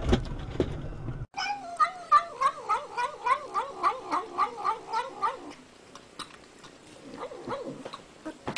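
A cat gives a rapid run of short, wavering meows, about three a second for some four seconds, then makes only faint sounds.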